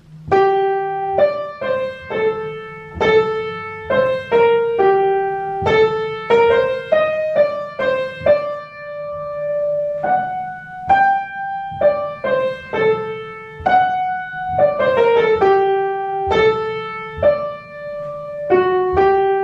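Piano playing a single-line melody in G minor in three-four time at a brisk tempo, one note at a time, about two notes a second: a melodic dictation exercise for solfeggio.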